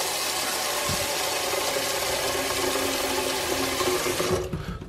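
Cold water from a sink faucet running steadily into a rice cooker's empty inner pot, splashing on its bottom; the tap is turned off near the end and the flow stops.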